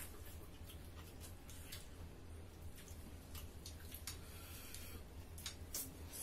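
Mouth sounds of people eating with their hands: irregular wet chewing, lip smacks and finger-licking clicks, over a low steady hum.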